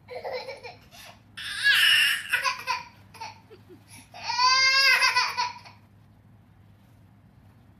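Infant girl of about 11 months crying in three outbursts: a short cry at the start, a loud one after about a second and a half, and a long loud one around the middle. The crying is distress at being stuck on a table she climbed and cannot easily get down from.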